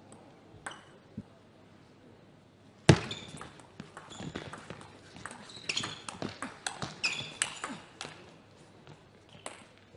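Table tennis rally: the plastic ball clicking in quick succession off the rubber bats and the table, mixed with short squeaks of shoes on the court floor. It starts with a sharp thud about three seconds in, the loudest sound, and the exchange dies away about eight seconds in.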